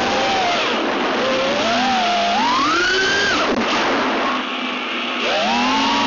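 FPV racing quadcopter's ZMX 2206 2300kv brushless motors and DAL 5x4x4 propellers whining, heard from the camera on board. The pitch rises and falls with the throttle. The throttle drops off briefly about four and a half seconds in, quieter and lower, then comes back up.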